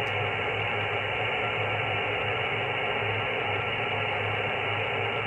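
Steady receiver hiss and band noise from a Yaesu FT-901DM transceiver tuned to 10-metre sideband, with no station coming through. The rush is held within the narrow voice passband, with a faint low hum under it.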